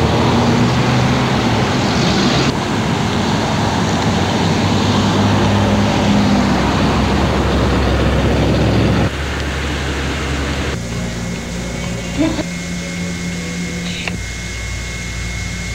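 Steady background noise with a low hum, loud at first and dropping to a quieter level about nine seconds in; a thin steady high tone comes in near the end.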